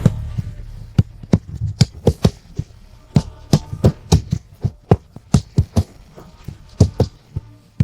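Irregular sharp taps, a few a second, over a low steady hum.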